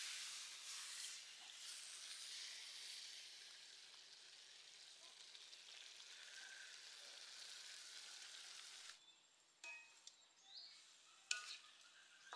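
Frog pieces stir-frying in a hot wok, a faint sizzling hiss that slowly fades and cuts off about nine seconds in. A few plucked notes of music follow near the end.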